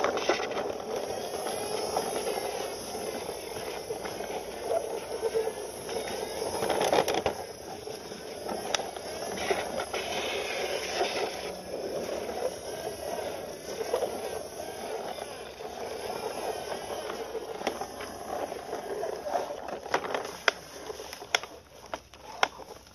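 Plastic wheels of a toy fire-ladder truck squealing and scraping as it is pushed by hand over concrete, a continuous wavering squeal. Near the end a few sharp clicks of plastic toys knocking together.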